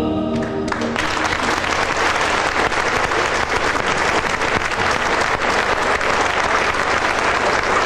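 Audience applauding steadily; the tail of the music dies away under the first of the clapping.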